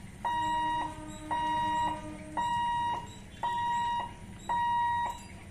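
Level-crossing warning hooter beeping in a steady single-pitched tone, about one beep a second, each a little over half a second long, signalling that the gate is closed for an approaching train. A fainter, lower steady tone sounds under the first two beeps.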